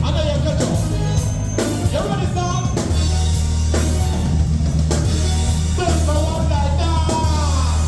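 Loud music playing, with a heavy bass line, a steady drum beat and a singing voice.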